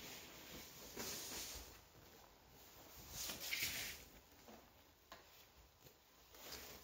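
Stiff woven obi fabric rustling as it is drawn out and handled, in soft swishes about a second in and again, louder, from about three to four seconds in.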